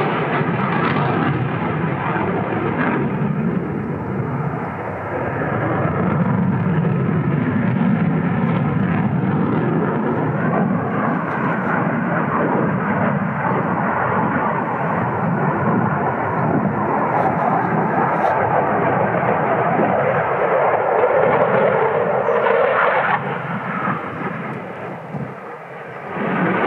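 Loud jet noise from a Saab JAS 39 Gripen fighter's turbofan engine as it turns hard through a flying display, steady throughout. Near the end a brighter, higher band in the noise cuts off suddenly and the noise dips briefly before rising again.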